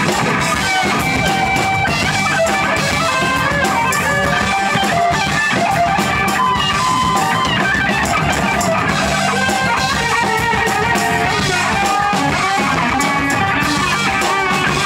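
A live funk band playing: a backward-sounding electric guitar solo over bass guitar and a drum kit.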